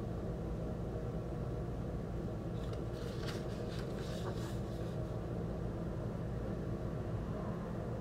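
Large paper record inserts being shuffled and turned over by hand: a rustle lasting about two seconds, a few seconds in, over a steady low background hum.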